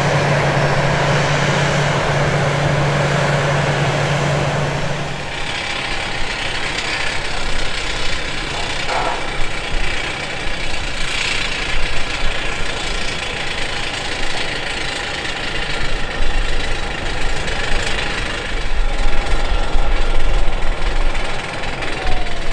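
Business-jet turbofans: a Cessna Citation Longitude rolling on the runway with a steady low hum, then a Gulfstream G650ER on approach, touching down and rolling out. The G650ER's broad jet rumble carries a thin steady whine and grows louder in the last few seconds, and a falling whine of the engines spooling down begins right at the end.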